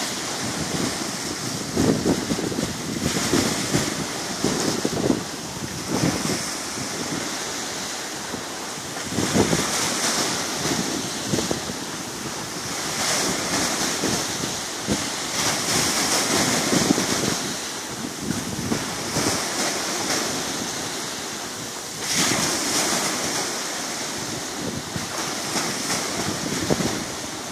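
Sea surf: waves breaking and washing up the shore, the noise surging and easing every few seconds, with wind buffeting the microphone.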